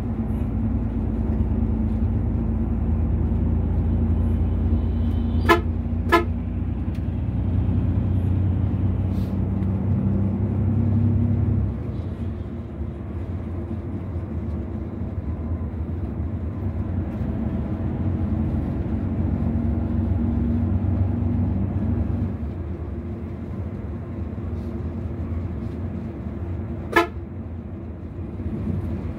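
Engine and road noise in a moving bus's cabin, a steady low drone that drops in level about twelve seconds in. A horn gives two short toots about five and six seconds in and one more near the end.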